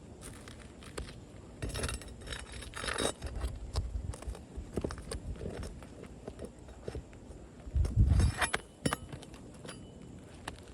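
Putty knife prying and scraping under old three-tab asphalt shingles, with scattered clicks and scrapes as the shingles lift off their loose nails. A loud low thump about eight seconds in.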